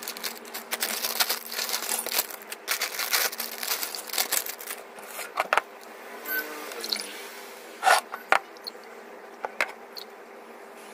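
Plastic chip packets crinkling and chips rattling out onto a steel plate for the first five seconds or so, followed by a few sparse sharp clicks and knocks, two of them loud about eight seconds in, as a plastic juice bottle is handled and opened.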